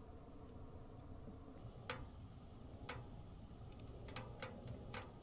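Faint, sharp ticks and pops from a burning stainless steel tent wood stove, irregular, about half a dozen spread over a few seconds.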